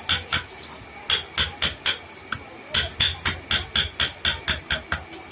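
Hammer striking wood in quick series of sharp knocks, about four a second. The knocks come in three runs: a few at the start, four just after a second in, then a longer run from under three seconds in almost to the end.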